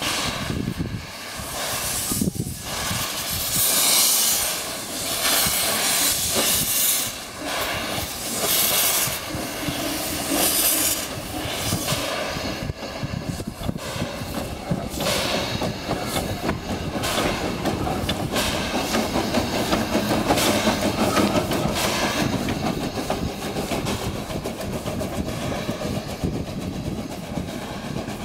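The Coffee Pot steam motor coach pulling away from a standstill: loud bursts of steam hiss over the first dozen seconds or so, then a steadier rattle and rumble of the wheels running along the track as it moves off.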